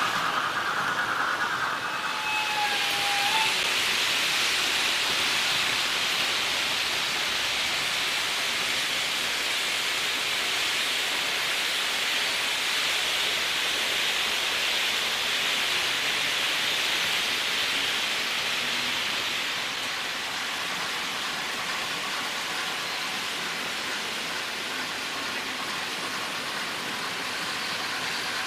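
Märklin H0 model trains running on the layout's track: a steady hiss-like rolling noise of small wheels and motors on the rails.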